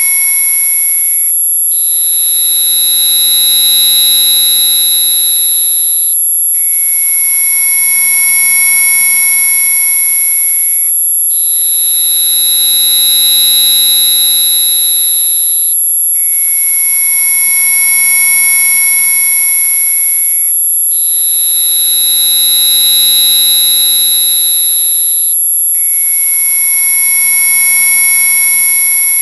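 Electronically generated mosquito-repellent tones: several steady pure tones layered together, topped by a piercing high whine that holds throughout. A prominent middle tone switches between a lower and a higher pitch about every five seconds, with a brief drop-out at each switch.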